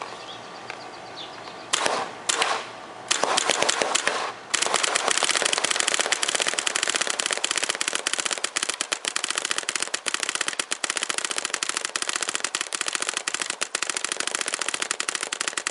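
Dangerous Powers Fusion FX electronic paintball marker firing on compressed air in a 25-balls-per-second custom mode: two short bursts about two seconds in, a longer burst, then rapid, steady fire for about eleven seconds that stops abruptly at the end.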